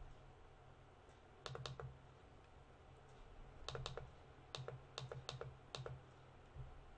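Faint computer mouse clicks: a double click about one and a half seconds in, another a couple of seconds later, then a quick run of single clicks.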